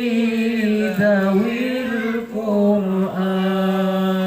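A solo male voice sings sholawat in Arabic devotional style, with ornamented melodic turns and long held notes. No accompaniment is heard.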